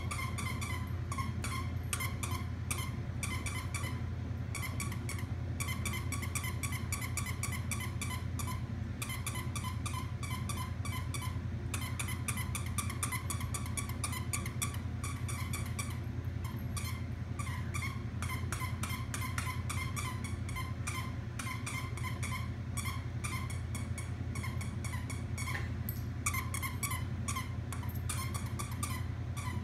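A dog chewing a hedgehog squeaky toy, squeaking it rapidly over and over, several squeaks a second with a few brief pauses. A steady low hum runs underneath.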